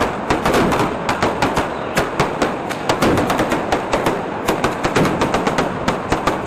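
A rapid, unbroken string of firecracker bangs, several sharp cracks a second.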